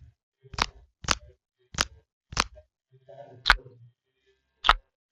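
A series of six sharp pops or clicks, roughly half a second apart at first, then spacing out to about a second near the end.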